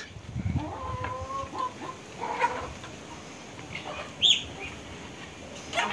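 Hens clucking, with a drawn-out call about a second in and a shorter one a second later, then a short high bird chirp about four seconds in and a sharp knock near the end.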